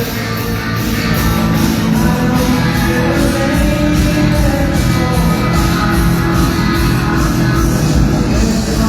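Rock and roll music played loud over a sonido sound system: a rock song with guitar and a steady drum beat.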